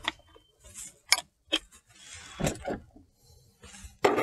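Sharp plastic clicks and knocks from lead-acid battery cell caps being pried off with a flathead screwdriver and handled, about five separate clicks spread roughly a second apart, the loudest near the end.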